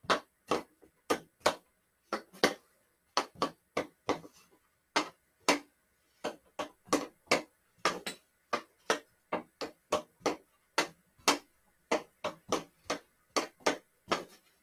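Hockey stick blade knocking a small stickhandling ball back and forth: a string of sharp clicks, about two or three a second in an uneven rhythm.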